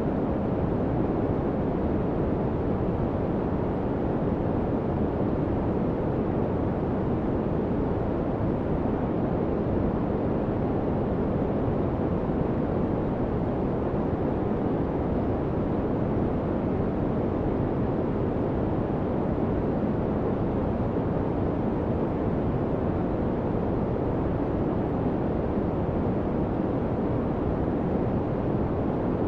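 Steady white-noise masking track, an even, unbroken hiss weighted toward the low end, laid over a subliminal affirmation recording.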